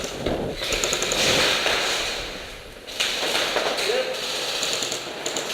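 Airsoft guns firing in sustained bursts, a rapid clatter of shots. It eases off after a couple of seconds and starts again sharply about three seconds in.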